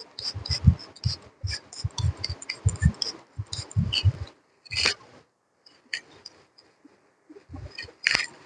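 Irregular rustling and rubbing with soft low thuds as a tissue is wiped over a man's face, thinning out after about four seconds. Near the end a cloth brushes close past, giving two louder rustles.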